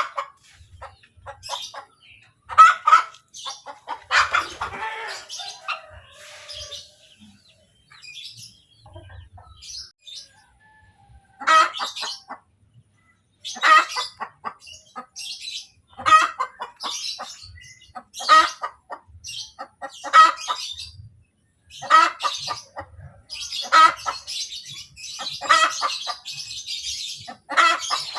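Hen cackling after laying an egg: runs of quick clucks, and from about the middle on, a loud call about every two seconds.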